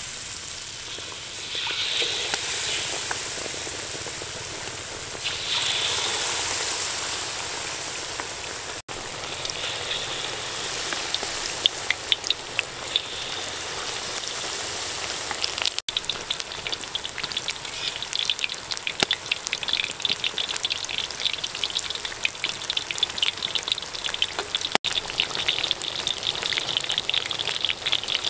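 Battered pork ribs deep-frying in a wok of hot oil: a steady sizzling hiss that swells as more battered pieces go in, turning to dense crackling pops in the second half.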